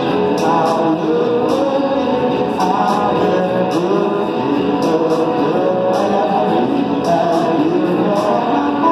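Live rock band playing: distorted-free electric guitar and drums with regular cymbal hits, and a man singing over them.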